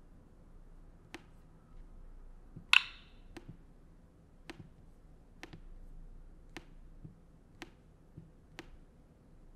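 A series of short, sharp clicks, roughly one a second, with one louder click about three seconds in, over faint room tone.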